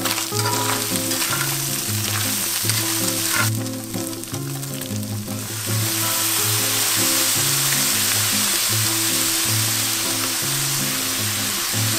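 Chopped milkfish, pork belly and onion frying in a cast-iron skillet, with a metal spatula stirring and scraping in the first half. The sizzle grows louder and steadier about halfway through, as liquid seasoning goes into the hot pan. Background music throughout.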